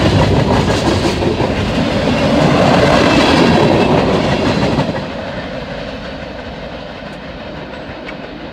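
Freight train cars rolling past close by. The sound drops suddenly about five seconds in as the last cars go by, then fades as the train moves away.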